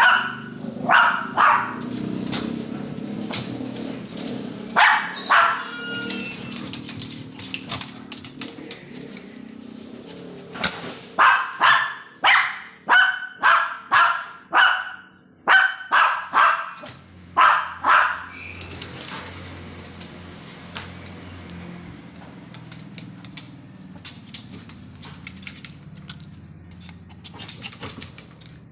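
Small long-haired dog barking in short sharp yaps: a few scattered barks early, then a quick run of about a dozen, roughly one or two a second, before it goes quiet.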